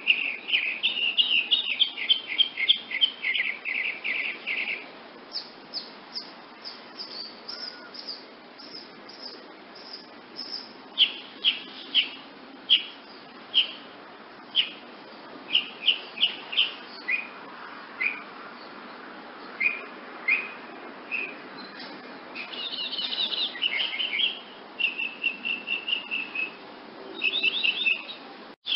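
Woodnymph hummingbird giving high, sharp chip calls. There are rapid chattering runs of chips at the start and again in the last several seconds, with single and paired chips spaced out in between.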